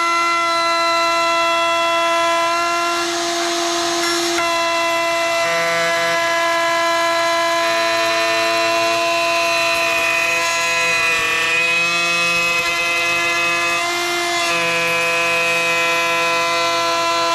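Wood router running at speed with a steady high whine, cutting into a pine guitar-body cap; the sound turns rougher in stretches as the bit takes wood.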